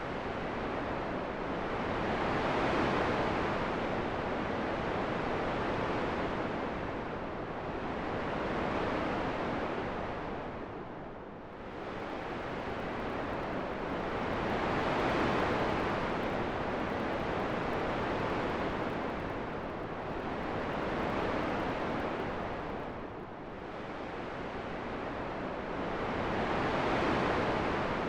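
Wind rushing in slow gusts that swell and die back about every six seconds, with no other sounds.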